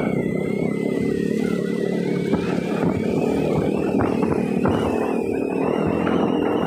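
Motorcycle engine running steadily under way, with a thin high whine wavering just above it.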